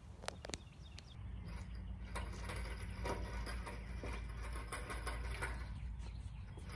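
An engine hoist rolling across concrete on its caster wheels: a steady low rumble with many small clicks and rattles, starting about a second in after two short clicks.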